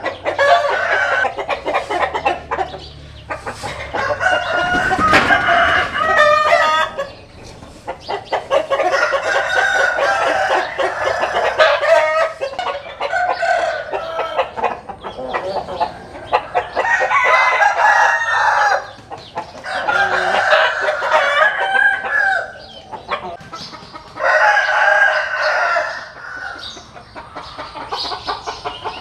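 Roosters crowing one after another, about eight loud crows with short gaps between them, with hens clucking.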